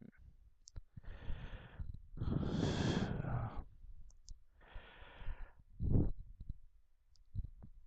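A person breathing close to the microphone: four breaths, the longest and loudest about two to three and a half seconds in, with a few faint clicks between them.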